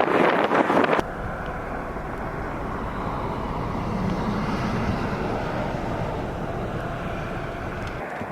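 Wind buffeting the microphone for about the first second. After an abrupt cut comes a steady vehicle engine rumble that swells slightly around the middle and then eases off.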